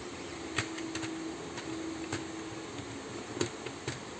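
Plastic parts of a Nerf Stryfe blaster clicking and knocking together as they are handled and fitted onto the shell half: a handful of short sharp clicks over a steady hum.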